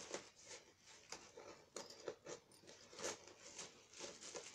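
Faint, scattered rustling and small clicks as a camcorder carrying case and its packaging are handled.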